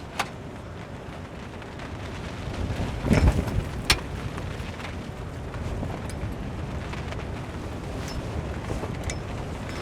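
Steady rain, with a few sharp taps of heavy drops and a brief low thud about three seconds in.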